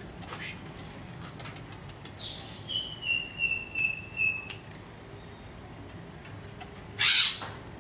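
Cucak ijo (green leafbird) calling: about two seconds in, a phrase of clear whistled notes, the first higher and the rest held level. Near the end comes one loud, harsh squawk, with a few light clicks scattered between.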